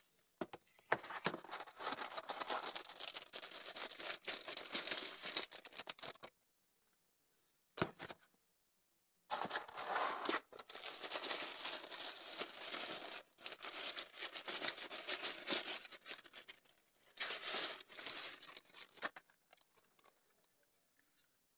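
Rustling and crinkling of packaging being handled: a paper booklet and a webcam lifted out of its foam box insert. The rustle comes in two long stretches, with a pause of about three seconds between them.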